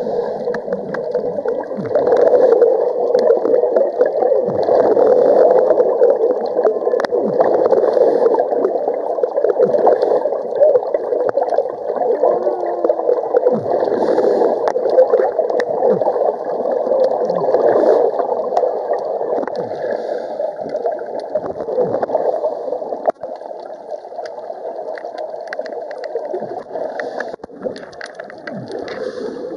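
Muffled underwater gurgling and bubbling with a steady wash of water noise, typical of a scuba dive recorded underwater.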